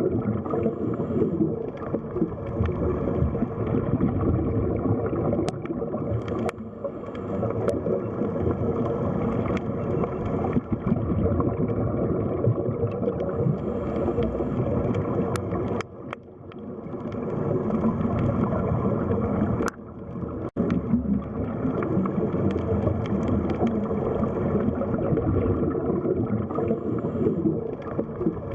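Underwater sea ambience: a continuous low, muffled rush and gurgle of moving water, with a few faint clicks. The level dips briefly about two-thirds of the way in.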